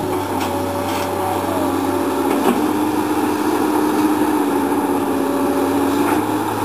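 Komatsu PC220 hydraulic excavator's diesel engine running under working load, a steady drone with a hydraulic whine that holds and shifts in pitch as the arm reaches out and draws back. A few sharp clicks break through it.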